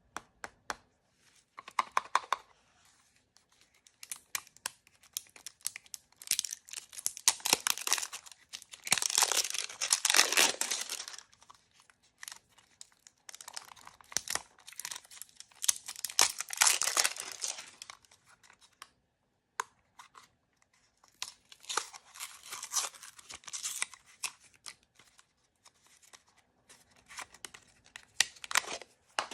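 Blind-bag wrappers being torn open and crinkled by hand, in several bursts of crackling separated by short pauses.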